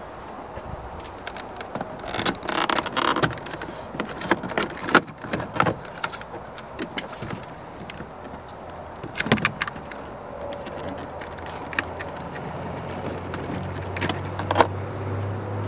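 Clicks, snaps and plastic rattles as trim pieces on a Ram truck's driver door are pried loose with a plastic trim tool and the window switch panel is popped out and its connector unplugged, in several short clusters. A low steady hum comes in near the end.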